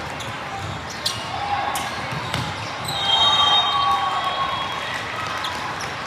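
Indoor volleyball rally sounds echoing in a large gym: sharp ball contacts and thumps on the court over a steady murmur of voices, with a louder stretch and a brief high squeaking tone about three seconds in.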